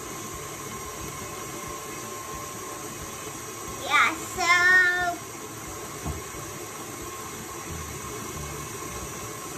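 KitchenAid Classic stand mixer running steadily as it beats frosting, with a thin steady whine. About four seconds in, a young child gives a brief sing-song vocalization.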